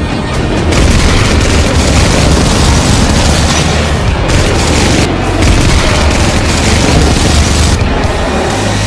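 Loud, dense battle sound effects: heavy booms over a continuous roar, with music underneath.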